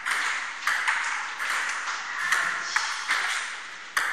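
Table tennis rally: the plastic ball clicks off rubber paddles and bounces on the table, about two to three clicks a second, each ringing briefly in the echo of a large hall.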